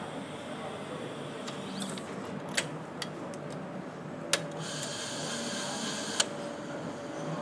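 Electric nutrunner on a torque arm driving bolts into an engine: a few sharp clicks, then a high whine of a little under two seconds that ends with a sharp click, over a steady machinery hum.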